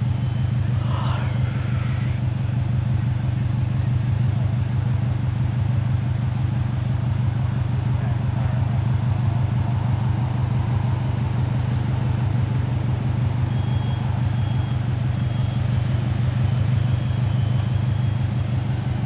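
Car engine idling with a loud, low, steady exhaust note: the exhaust noise the car was pulled over for.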